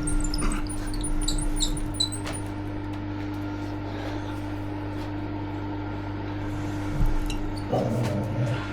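A steady machine hum runs throughout, typical of a milling machine's electric motor. In the first two seconds there is a quick run of short, high metallic squeaks and ticks, and a single knock comes about seven seconds in, followed by a brief rustle.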